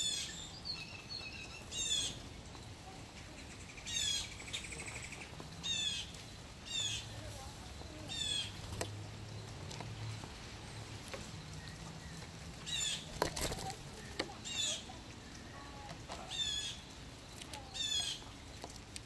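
A bird calling over and over: about ten short, high call notes, one every one and a half to two seconds, with a pause of a few seconds in the middle. A single sharp knock comes about two-thirds of the way through.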